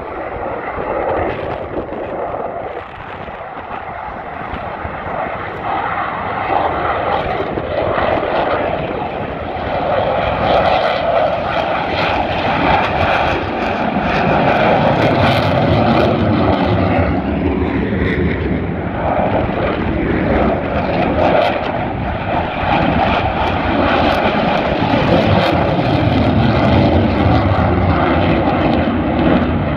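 Boeing EA-18G Growler jets taking off, their twin General Electric F414 turbofan engines at takeoff power. A jet roar that swells about ten seconds in and stays loud as the jets lift off and climb away.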